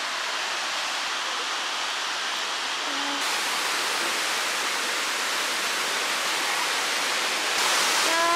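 Rushing water of a shallow rocky stream, a steady hiss that grows louder in two steps, about three seconds in and again near the end. A person's voice holds a short steady note near the end.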